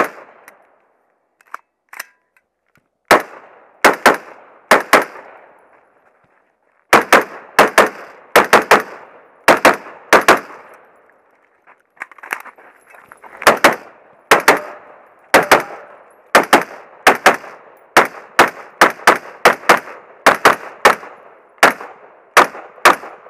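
AR-style semi-automatic carbine firing a stage: about two dozen sharp rifle shots in quick pairs and short strings, with breaks of a second or two between groups.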